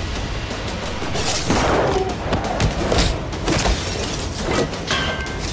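Action-trailer sound effects: a rapid, irregular string of crashes, hits and booms, loud throughout.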